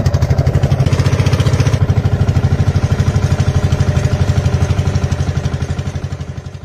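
An outrigger boat's engine running with a fast, even beat of about a dozen pulses a second. It fades near the end and cuts off.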